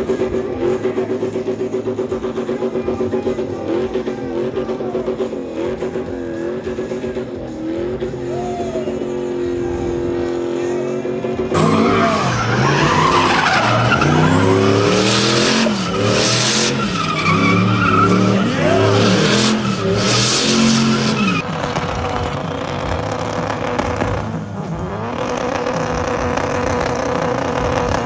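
Car engine revving hard with tires squealing, as in a burnout. The engine note wavers at first, grows much louder about eleven seconds in for roughly ten seconds with the pitch rising and falling, then drops back to a steadier run.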